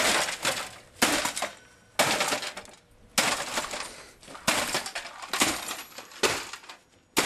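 Sledgehammer blows smashing a desktop computer, about eight strikes roughly a second apart, each followed by rattling and clinking of broken metal and plastic parts.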